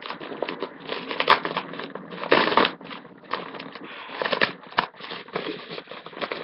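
Padded paper mailer envelope being torn open and rummaged through: irregular crinkling, crackling and tearing of the paper, loudest about two and a half seconds in.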